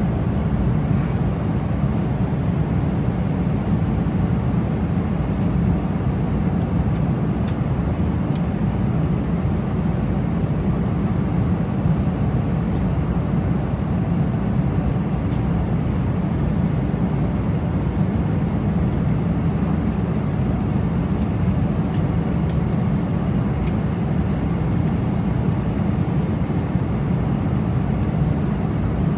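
Steady cabin drone of a Boeing 747-400 in cruise, engine and airflow noise heard from inside the economy cabin, deepest and strongest in the low range.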